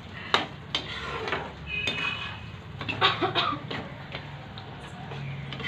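A cooking utensil clinking and scraping against a pan while a paneer curry is stirred, with a handful of sharp knocks at uneven intervals.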